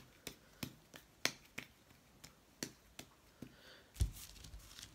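Hands rolling a ball of air-dry clay between the palms, giving sharp little clicks about three times a second, then a low thump about four seconds in as the ball goes down on the mat.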